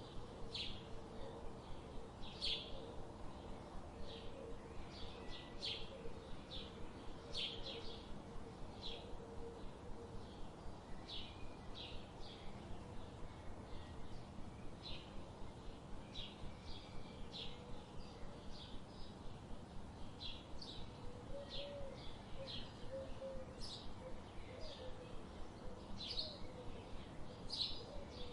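Songbirds chirping: short, high chirps come irregularly, about one or two a second, over a steady background hiss.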